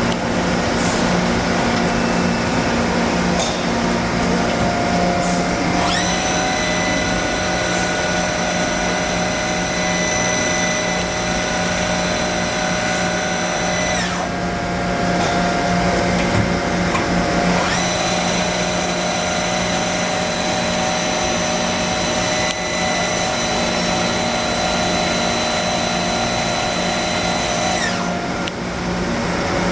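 Hyundai-Kia SKT21LMS CNC turning centre running, with a steady low machine hum. A high motor whine spins up about six seconds in and runs for about eight seconds, then spins up again for about ten seconds before stopping near the end.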